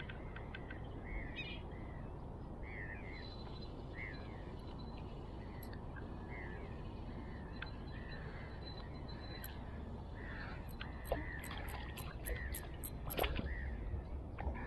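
A bird calls over and over, a short rise-and-fall call about every half second to a second, over a steady low rumble. Near the end comes a quick run of sharp clicks.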